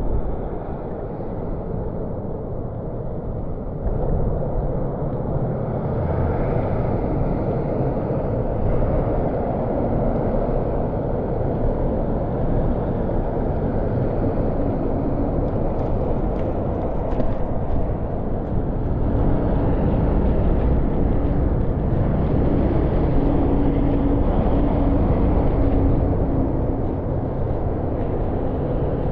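Steady outdoor city street noise, mostly a low rumble, growing a little louder twice during the stretch.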